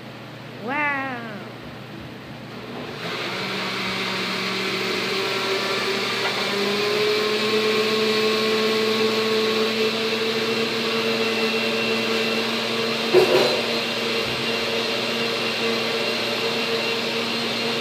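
A short meow-like call about a second in. Then, from about three seconds, a steady electric motor drone with a whine that creeps slightly up in pitch, like a household appliance running, broken by one sharp click about thirteen seconds in.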